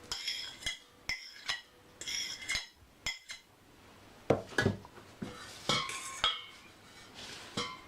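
Cutlery clinking and tapping against the dish of beaten eggs as chopped ingredients are added: a string of short, sharp clinks, several with a brief high ring, and a few duller knocks about halfway through.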